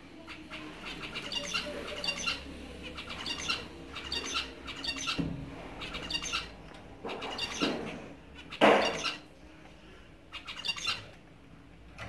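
Caged zebra finches calling, a run of short, nasal repeated calls in quick clusters. A brief louder rush of noise about three-quarters of the way through.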